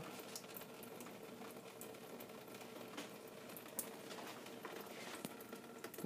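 Faint dripping and trickling of water inside an opened dishwasher at the end of its wash cycle, over a low steady hum, with a few faint clicks.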